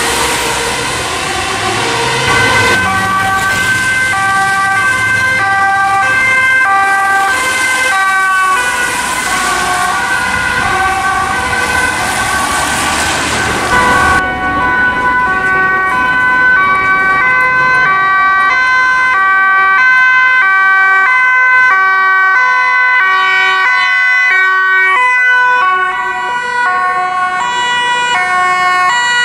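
Dutch fire engine's two-tone siren, alternating between two pitches over loud engine and wet-tyre road noise. About halfway through, a cut to a Dutch ambulance's two-tone siren, the same alternating pattern heard more clearly without the road noise.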